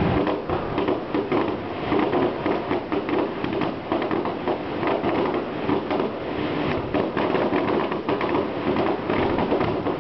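Fireworks going off in a dense, continuous run of many closely spaced pops and crackles.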